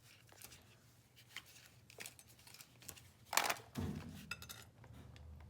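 Scattered small clicks and clinks of hard parts or tools being handled, with one louder clattering scrape about three and a half seconds in, followed by a low rumble.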